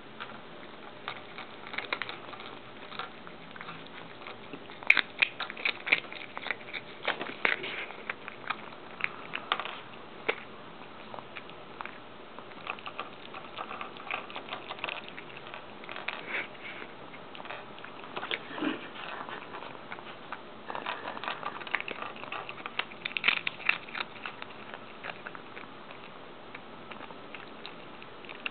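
A cat crunching Doritos tortilla chips: irregular crisp crunches and crackles in clusters, with short pauses between mouthfuls.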